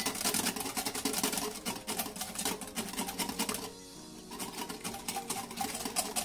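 Wire whisk beating fast against a glass bowl in rapid clicks, whipping egg yolk and mustard as oil is trickled in to emulsify a mayonnaise. The whisking pauses briefly a little before four seconds in, then resumes.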